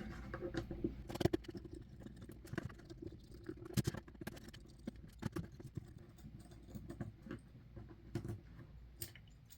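Screws being unscrewed from the plastic back panel of a TI-30Xa calculator: faint, irregular small clicks and ticks of the screwdriver and handling.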